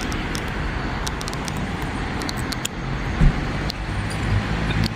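Steady road traffic noise, with scattered light clicks and a brief louder thump a little past the middle.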